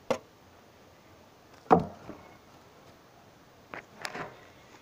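A knife chopping on a wooden board: four separate sharp knocks, the second the loudest and deepest, with a short tail.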